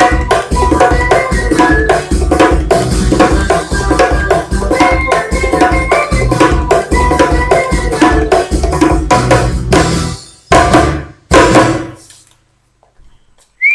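Bongos played by hand in a fast rhythm along with music, ending with two hard strokes about a second apart.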